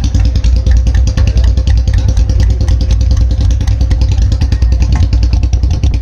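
Royal Enfield Bullet 350 single-cylinder engines idling together through loud long Punjab-style exhausts, a fast, steady train of exhaust thumps. One bike runs at a higher idle and stands out from the others.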